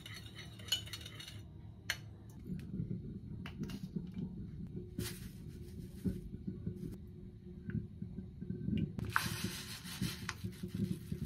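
Kitchen prep sounds: a spoon clinking and scraping as it stirs seasoning in a small ceramic bowl for about a second. Then come scattered clicks and knocks of utensils against bowls, and a longer stretch of scraping and rustling near the end.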